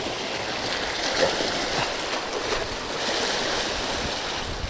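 Sea waves washing and splashing against a rocky shore, a steady rushing hiss of surf.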